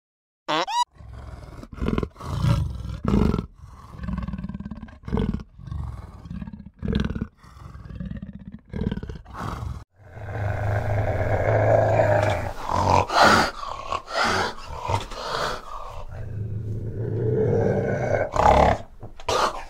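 Large animal vocalizing: a run of deep, repeated calls, then, after a brief break about ten seconds in, a louder stretch of deeper calls.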